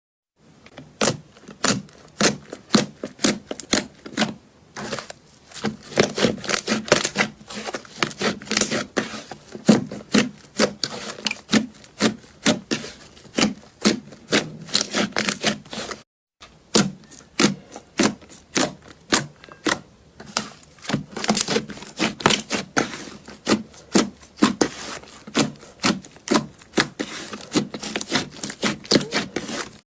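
Slime being squeezed and poked, making a dense, irregular run of sharp clicks and pops, with a short break about halfway.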